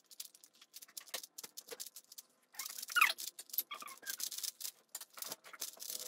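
A 3x3 Rubik's cube being turned quickly by hand: a fast, uneven run of light plastic clicks and clacks, with a short squeaky glide in pitch about three seconds in.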